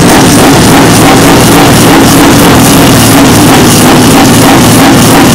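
Loud electronic dance music with a steady beat, over the running of a Scania R620's V8 truck engine.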